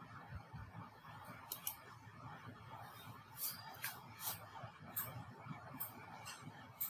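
Computer mouse clicking about nine times at irregular intervals, some in quick pairs, over faint steady room noise.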